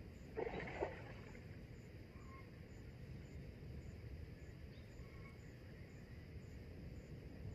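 Riverside outdoor ambience: a steady low rumble with a few faint bird chirps, and one brief loud noise about half a second in.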